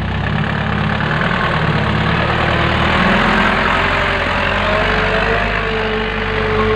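Mitsubishi Canter truck's diesel engine running as the truck drives slowly past close by on a dirt track, growing louder about three seconds in as its side goes by.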